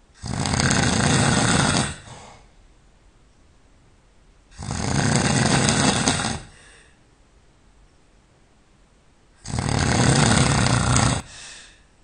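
A person snoring loudly in sleep: three long snores about five seconds apart, each followed by a short, fainter tail.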